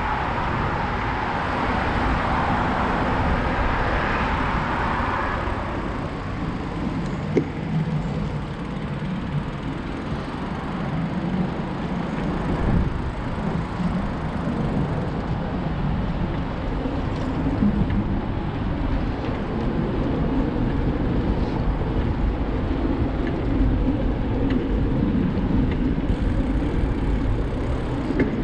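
Wind buffeting the camera microphone and the rolling rumble of a bicycle moving along a paved path and then a wooden boardwalk. Background road traffic noise runs throughout, with a brighter hiss in the first five seconds and a few faint clicks.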